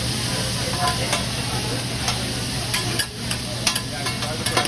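Food sizzling on a hibachi flat-top griddle, with the sharp clicks and scrapes of a metal spatula against the griddle repeating throughout.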